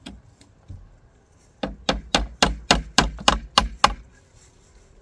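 Hammer driving nails into the wooden roof boards of a chicken coop: nine quick, even strikes, about four a second, starting about a second and a half in.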